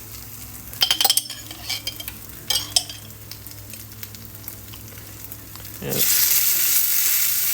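A few sharp clinks of a utensil against a jar or pan, over a hot frying pan sizzling softly. About six seconds in, the sizzle suddenly grows much louder.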